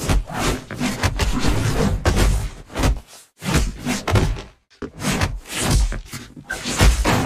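Fist-fight sound effect: a rapid run of punches and body blows, heavy thuds and slaps landing one after another. There are two short pauses about three and four and a half seconds in.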